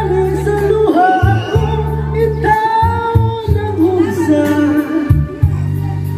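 A man singing into a handheld microphone over backing music with a steady bass line.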